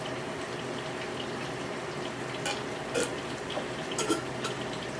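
Pork chops frying in a pan: a steady sizzle, with a few light clicks of utensils against the pan near the middle and end.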